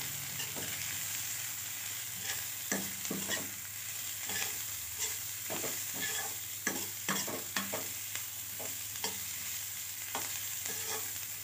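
Chopped drumstick (moringa) pods frying in oil in a metal kadai, sizzling steadily, while a metal spatula stirs them with frequent irregular scrapes and taps against the pan.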